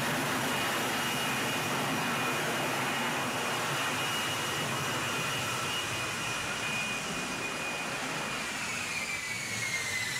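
Jet engine of an F-35B fighter running at high power: a steady rush of noise with high whining tones. Over the last couple of seconds the whine slides down in pitch.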